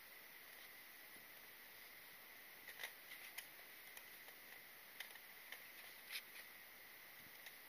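Near silence while the shooter holds aim, broken only by a few faint, short ticks.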